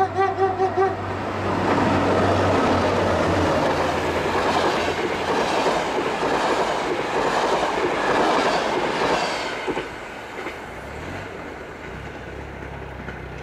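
Locomotive-hauled passenger train passing close by. Its horn gives a quick run of short toots in the first second, then the locomotive and coaches go past loudly, wheels clacking over the rail joints, before the sound fades to a rumble over the last few seconds.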